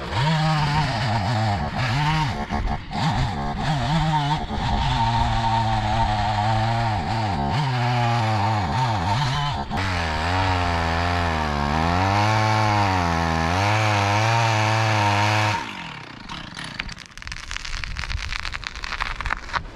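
Chainsaw sawing through a large tree trunk in a felling cut, its engine pitch rising and dipping under load. It cuts off abruptly about fifteen seconds in as the tree begins to lean over.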